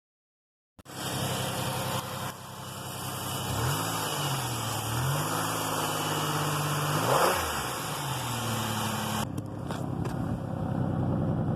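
2004 Oldsmobile Alero's pushrod V6 running, its engine note rising and falling a few times in the middle as it is revved. It has just had its broken pushrods and rocker arm replaced to cure a cylinder 3 misfire, and it runs evenly: "perfect".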